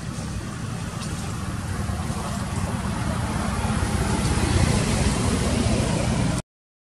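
Steady low rumble of outdoor background noise, growing slowly louder, then cut off abruptly just before the end.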